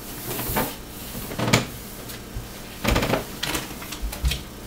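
A few separate knocks and clatters, the loudest about one and a half seconds in and a cluster around three seconds in: footsteps down a short stairway and a tension curtain rod being picked up and handled.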